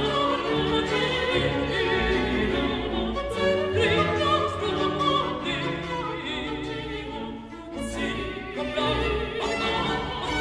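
Classical music: an operatic voice singing with vibrato over an orchestra.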